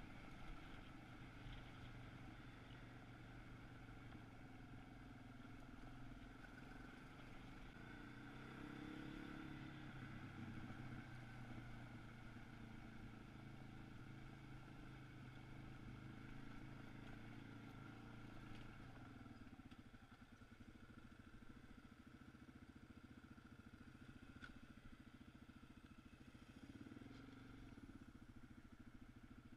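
Single-cylinder dual-sport motorcycle engine running as the bike rides a dirt road, heard faintly from the bike's own camera. The pitch climbs about eight seconds in, and the engine falls quieter about twenty seconds in.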